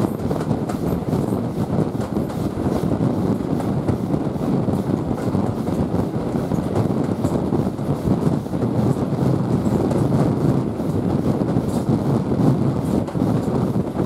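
Heritage steam train hauled by LMS Ivatt tank engine 41312, heard through an open coach window just behind the locomotive: a steady rumble of wheels on rail as the train runs at speed.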